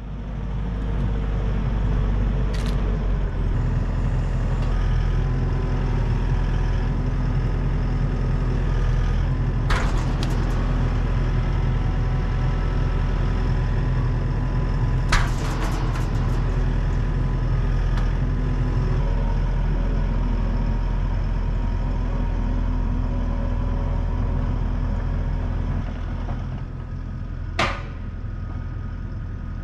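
A large engine-driven machine running steadily, with a few sharp clicks or knocks over it.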